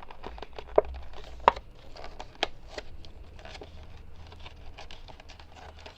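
Cardboard being bent and creased by hand: scattered crackles and sharp clicks, the loudest about a second and a half in.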